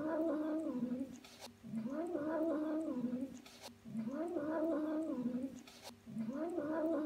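Long-haired ginger cat growling over its food bowl: a wavering, rising-and-falling growl on each breath, repeating about every two seconds with short pauses between.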